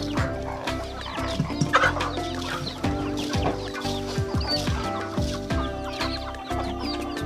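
Chickens clucking, with a louder squawk about two seconds in, over background music of sustained notes and deep drum hits.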